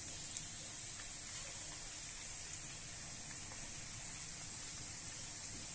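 Sliced onions, whole spices and curry leaves sizzling steadily in hot oil in a pan, being fried until golden, with a few faint crackles.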